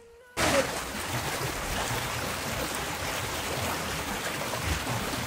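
Steady rush of a flowing stream, starting suddenly about half a second in.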